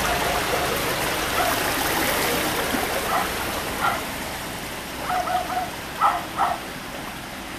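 Floodwater rushing and splashing around the wheels of a Nissan Navara pickup as it drives slowly through a flooded road, a steady rushing hiss. Several short calls come in the second half, the loudest two about six seconds in.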